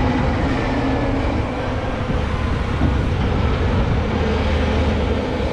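Diesel engine of a Cat 980K wheel loader running steadily while loading rock, a loud low rumble.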